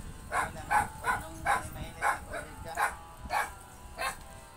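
A dog barking repeatedly, about nine sharp barks at roughly two a second, stopping shortly before the end.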